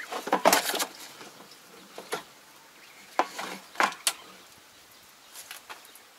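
Scattered knocks and clatter on the tractor's body as a person moves about and climbs onto it: a quick cluster about half a second in, then single knocks roughly every half second to a second, fading near the end.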